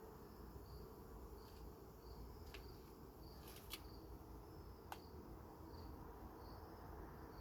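A cricket chirping steadily in short, evenly spaced chirps, a little under two a second, over a faint low hum of honeybees at the open hive. A few light clicks come through the middle.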